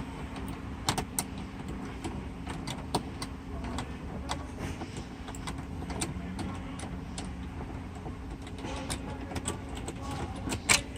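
Scattered light clicks and knocks of a hand tool working an 8 mm bolt loose from a car's interior trim panel, with a quick run of clicks near the end, over a faint steady low hum.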